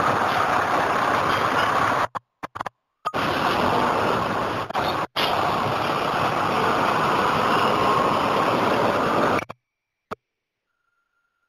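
Street noise from an idling city bus and traffic, steady and hissy, with short dropouts about two and five seconds in, then cutting off to silence near the end.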